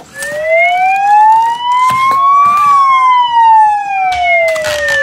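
Electronic fire-truck siren wail: one slow cycle that rises smoothly for about two and a half seconds and falls back again, with a few light knocks of handling partway through.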